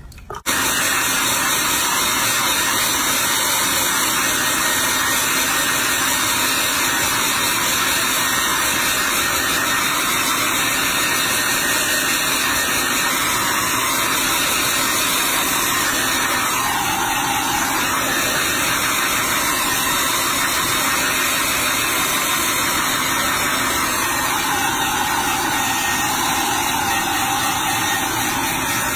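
Handheld hair dryer blowing steadily on a baby monkey's wet fur, switched on abruptly about half a second in; its tone shifts slightly a couple of times.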